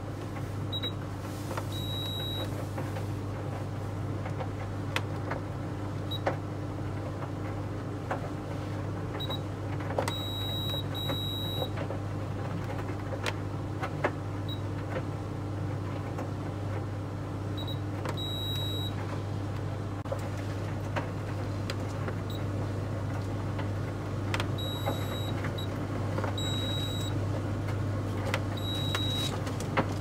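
Beko tumble dryer running with a steady low hum and scattered light clicks. Short high electronic beeps from its control panel come now and then as the child-lock buttons are held down.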